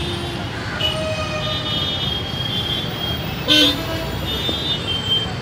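Short high-pitched horn toots over a steady outdoor din, with one louder, fuller toot about three and a half seconds in.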